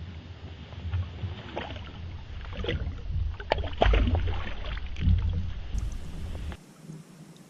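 Irregular splashes and knocks around a kayak over a low rumble, busiest in the middle. The sound drops abruptly to something quieter near the end.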